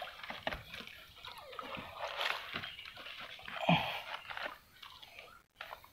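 Hands and arm rummaging in a muddy, water-filled hole in swamp ground: irregular squelching and sloshing of mud and water, with a louder moment a little before four seconds in.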